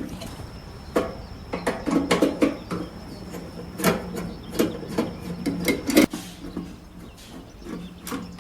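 Irregular clicks and knocks of hand work on hard parts, over a steady low hum.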